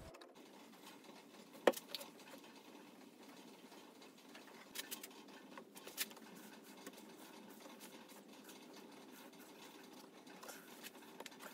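Faint handling noise of wooden workpieces on a workbench: a sharp click about two seconds in, then a few light knocks and taps around the middle and near the end.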